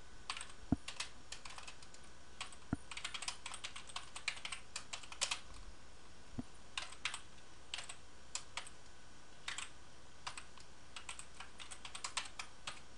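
Computer keyboard being typed on: quick, irregular runs of light keystrokes broken by short pauses.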